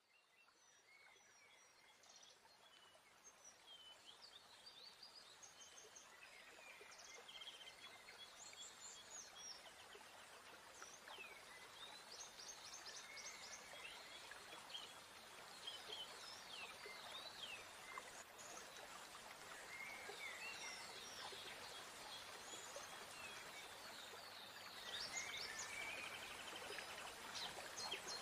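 Many small birds chirping and trilling over a soft, steady hiss, in a dawn chorus that fades in from silence over the first several seconds.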